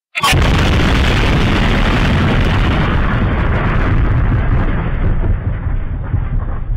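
Explosion sound effect: a sharp crack, then a loud, long rumble that slowly dies away.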